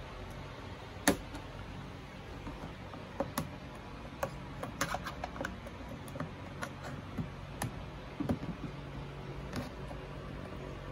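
Scattered light clicks and taps of a screwdriver working plastic push-clip fasteners loose from an ATV's plastic body panels, with one sharper click about a second in. A faint steady low hum sits underneath.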